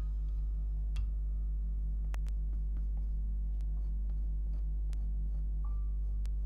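Palette knife stroking acrylic paint onto a canvas: faint scraping with a few soft ticks, over a steady low hum.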